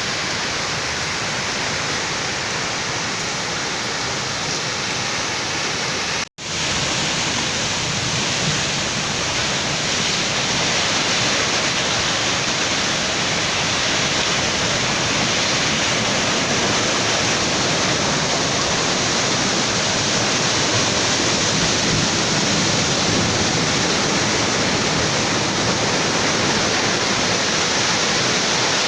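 Steady rushing noise of ocean surf breaking on the beach, cut off for an instant about six seconds in, then a little louder.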